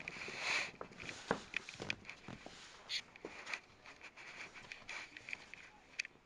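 Faint rustling close to the microphone, with a few soft scattered taps and clicks.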